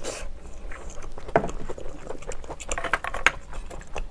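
Chewing a mouthful of steamed shellfish meat: a run of small wet clicks and smacks, two sharper ones about a second and a half and three seconds in.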